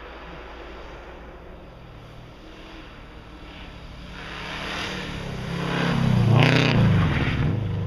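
Rally car engine approaching at speed, growing louder over several seconds and passing close by about six and a half seconds in, its engine note rising and then dropping as it goes by, before fading away.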